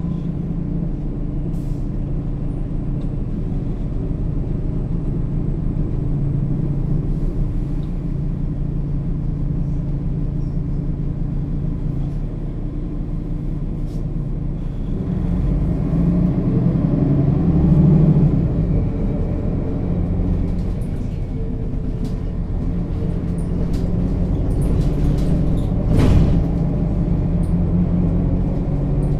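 Mercedes-Benz Citaro O 530 G articulated bus on the move, its diesel engine and Voith automatic gearbox running steadily. Around the middle it pulls harder, getting louder with a rising tone as it accelerates. A single sharp knock comes near the end.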